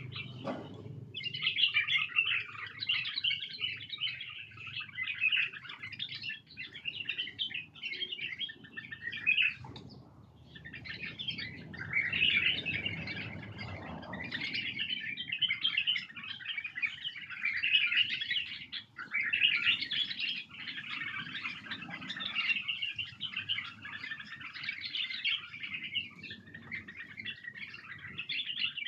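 White-cheeked bulbuls singing and chattering almost without pause, in quick, varied phrases, with a short break about ten seconds in.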